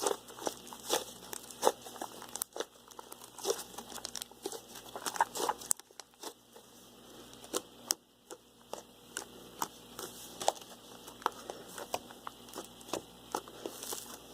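Fluffy marshmallow slime made with glue, shaving cream and borax activator, being worked and played with by hand. It gives irregular sharp crackling pops, about one or two a second, over a faint crinkle.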